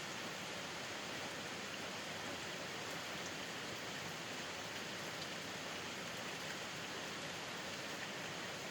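Steady rain falling, an even hiss with the odd faint drop tick.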